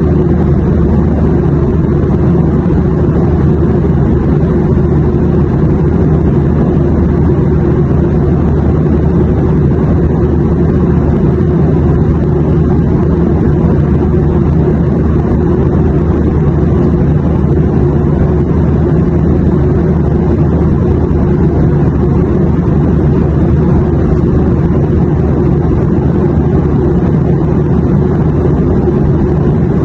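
Airplane cabin noise in flight: a steady, low, even rumble of engine and air noise with no changes.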